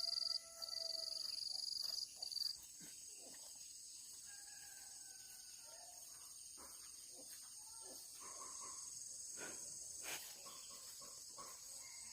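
Insects chirring outdoors in a steady high-pitched chorus, with one louder pulsing trill that stops about two and a half seconds in. Scattered faint clicks and a few short calls sit underneath.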